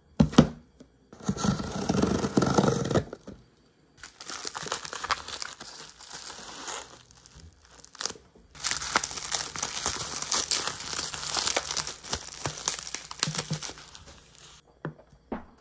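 Shipping packaging being opened by hand: a cardboard box handled and opened, then plastic bubble wrap crinkling and tearing as it is pulled off. The sound comes in several bursts of crackling separated by short pauses, with a knock at the very start.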